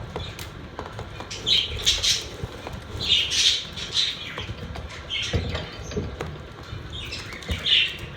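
Pet budgerigars chirping and chattering in bursts every second or two, with scattered light taps and clicks.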